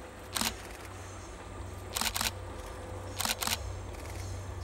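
Camera shutter firing five times: once, then two quick pairs, each click sharp and brief.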